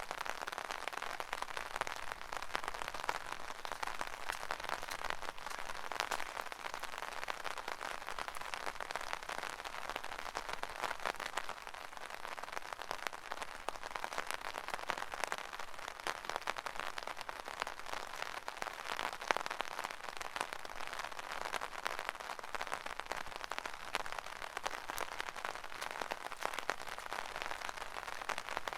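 Steady rain pattering on an umbrella, heard from underneath it: a dense, even hiss made of many small drop ticks on the fabric.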